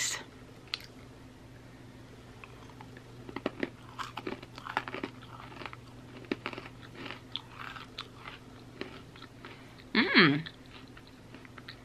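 Chewing of a hard Snyder's pretzel piece with the mouth closed: a few seconds in, irregular crunches begin and go on for about six seconds. About ten seconds in comes a short hummed "mm" that falls in pitch.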